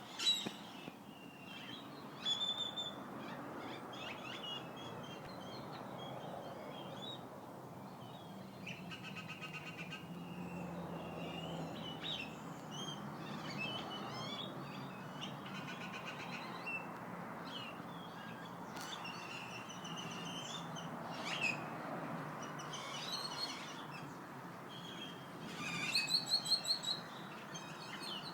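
Several wild birds chirping and calling, short overlapping calls and trills throughout, with a louder rapid run of calls near the end, over a steady low background rumble.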